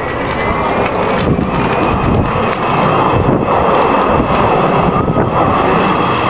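The four Rolls-Royce Olympus turbojets of the Avro Vulcan XH558 delta-wing bomber give a loud, steady jet roar as it makes a low display pass. The roar builds slightly in the first second and then holds.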